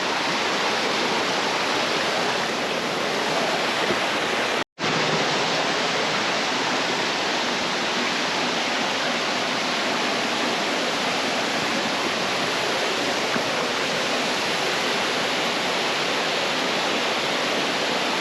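Waterfall rushing steadily into its pool: a loud, even roar of falling water, swollen by recent rain. The sound cuts out completely for a split second about a third of the way in.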